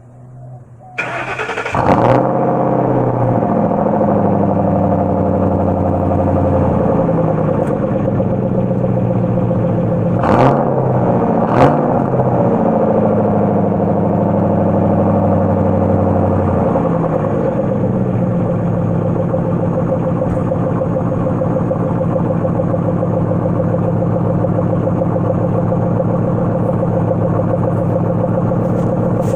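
2004 Ford Crown Victoria Police Interceptor's 4.6-litre V8, with no mufflers and the catalytic converters deleted, cold starting about a second in and then running at a loud, fast idle. Two short sharp sounds come a little over a third of the way through, and the idle steps down somewhat past the middle.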